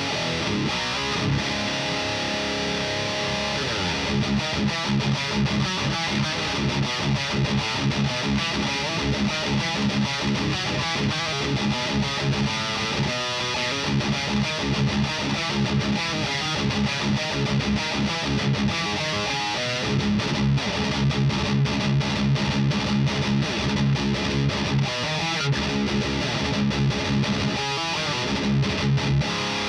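Distorted electric guitar riffing with quick, repeated chugging low notes. It is a Guerrilla Shinobi M-SR6 with a DiMarzio Evolution bridge pickup, played through a Fortin Hexdrive overdrive pedal into a Mesa/Boogie Single Rectifier amp and a Mojo Tone iso cab loaded with WGS DW75 and Jensen Nighthawk 75 speakers.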